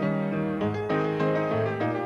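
Piano music: chords and a melody in quick, evenly paced notes, accompanying a silent film.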